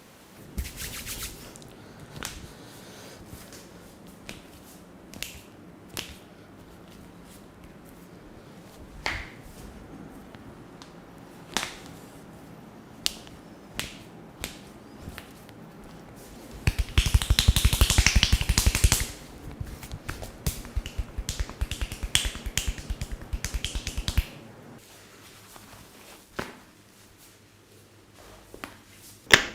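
Hands at work in a cracking massage: scattered sharp pops and snaps every second or two. Just past halfway comes a fast run of rapid tapping strokes, loudest for about two seconds, then lighter for about five more. Another fast run starts right at the end.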